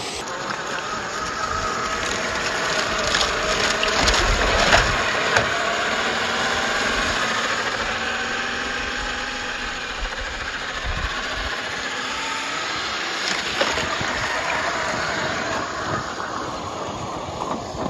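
Brushed electric motor and gearbox of a Traxxas TRX-4 RC crawler whining under a rushing noise, the pitch rising and falling with the throttle, with a few sharp knocks from the chassis.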